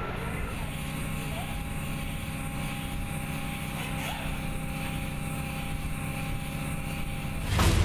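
Steady vehicle engine running with a low rumble and a faint steady whine. Music comes in near the end.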